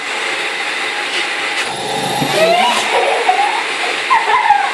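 Vacuum cleaner running steadily, a continuous rushing noise with a faint high whine.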